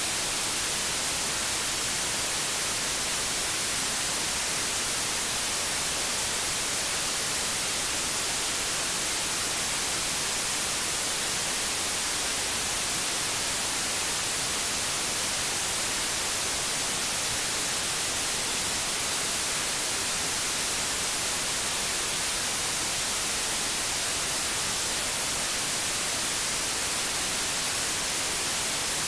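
Steady white noise: an even, unchanging hiss, brightest in the treble.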